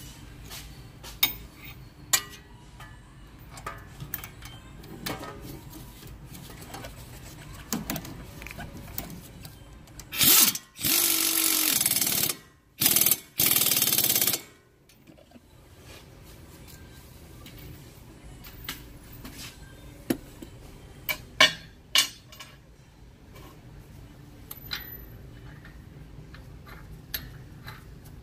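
Impact wrench running in several short bursts, about ten seconds in and for some four seconds, driving home the lower ball joint's pinch bolt and nut in the front steering knuckle. Scattered clinks of hand tools on metal come before and after.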